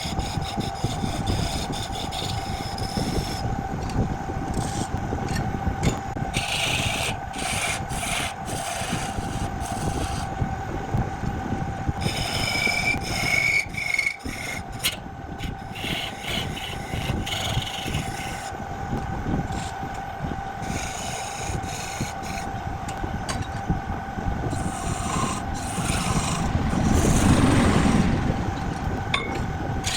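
Wood lathe running with a steady hum while a turning tool scrapes and cuts the spinning wood, growing louder for a couple of seconds near the end.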